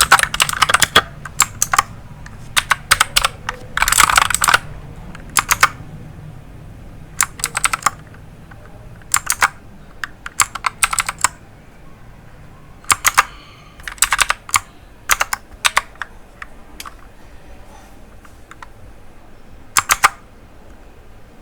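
Clicky blue switches on an RK61 mechanical keyboard clicking as keys are pressed, in irregular clusters of sharp clicks with pauses of a second or more between them.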